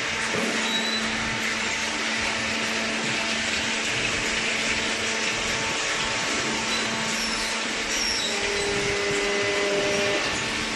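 Hydraulic baler's motor and pump running with a steady whirring hum. A higher steady tone joins about eight seconds in.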